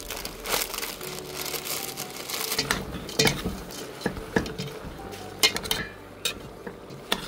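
Plastic instant-noodle packet crinkling as the noodles are emptied into the pot at the start, then a metal spoon stirring a vegetable and noodle stir-fry, with scattered knocks and scrapes against the pot.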